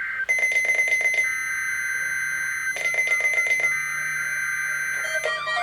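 NOAA Weather Radio SAME header for a weekly test: blocks of high two-tone digital data warble about a second and a half long, broken by crackly static. Near the end the long warning alarm tone begins.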